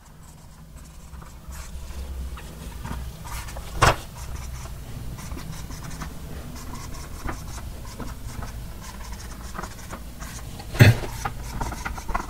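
Dry-erase marker writing on a whiteboard: faint squeaks and light taps as numbers and brackets are drawn, over a low steady hum. Two louder knocks come about four seconds in and near the end.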